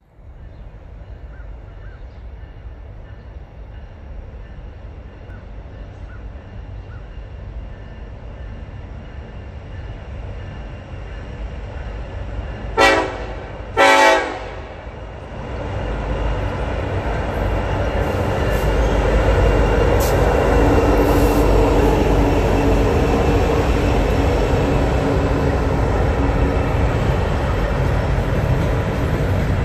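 Norfolk Southern diesel locomotives hauling an empty coal train, approaching with a rumble that grows steadily louder. About 13 seconds in, the horn sounds twice, a short blast and then a longer one. The locomotives then pass close by with a loud, steady engine rumble and the rolling of empty coal hopper cars, with a few sharp clanks.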